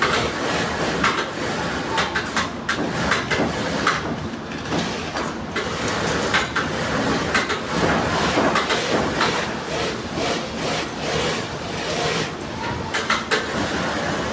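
Industrial sewing machine stitching a leather glove, a continuous mechanical clatter with many irregular clicks and knocks.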